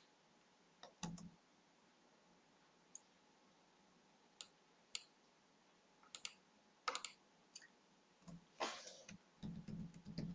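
Faint, scattered clicks of a computer keyboard and mouse: a few single keystrokes, then more frequent clicks in the second half.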